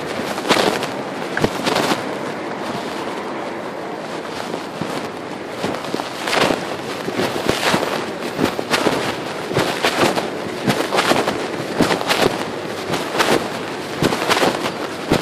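Pocket fabric rubbing and scraping against a smartphone's microphone while the wearer walks, a constant crackling rustle broken by frequent irregular pops.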